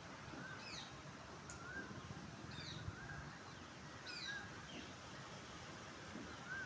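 Birds calling over faint outdoor background noise: a short, high, rising-and-falling note repeats about once a second, with a few higher chirps now and then.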